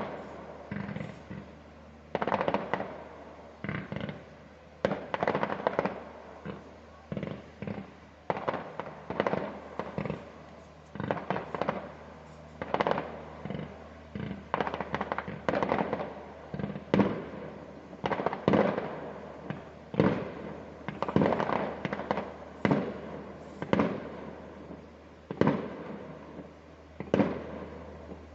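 Fireworks display: aerial shells going off one after another, a bang every second or so with frequent quick clusters, each trailing a rolling echo.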